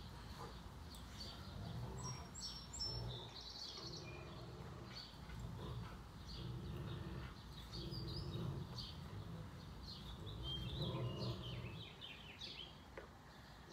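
Birds chirping in short, scattered calls over a faint low background hum.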